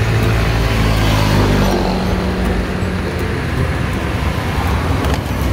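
Road traffic: a motor vehicle's engine running close by, a steady low hum whose pitch shifts slightly a second or two in, as if the vehicle is passing.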